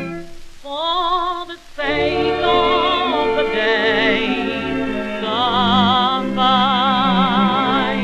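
Old 1930s music-hall record playing: an orchestra with a strongly wavering melody line, possibly a voice, over sustained accompaniment. There is a brief dip in the music about a second and a half in, and the sound is thin with no top end, as on an early recording.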